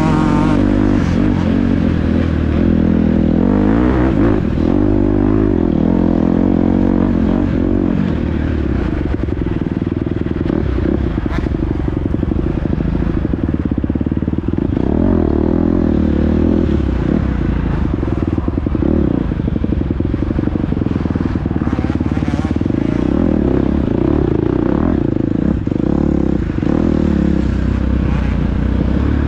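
Dirt bike engine running hard in a race, its revs rising and falling continually with the throttle, over a clatter of knocks from the bike on rough ground.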